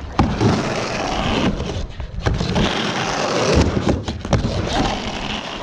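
A skateboard rolling back and forth across a wooden mini ramp, the wheels giving a loud rumble that swells and fades with each pass, broken by several sharp knocks as the board hits the ramp's coping.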